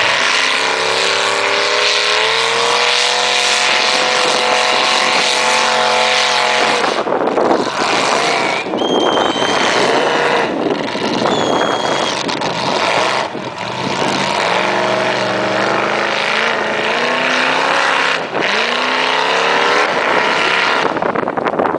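A lifted 4x4 truck's engine revving hard as it churns through deep mud, its pitch rising and falling again and again with the throttle over the steady noise of spinning tyres and mud. Two short, high, steady tones sound briefly around the middle.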